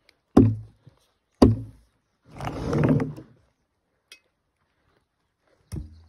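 Two heavy wooden thunks about a second apart, then a brief scraping rustle and one more knock near the end: wooden parts being knocked and shifted into place.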